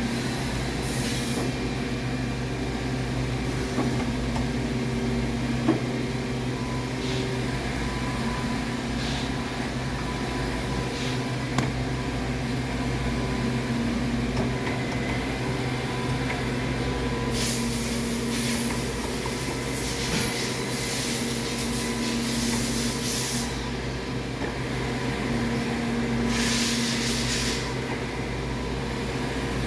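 Regent 1632AHD surface grinder running, with a steady motor hum and a drone that swells and fades every few seconds. Stretches of high hiss break in: a long one of about six seconds a little past halfway, and a shorter one near the end.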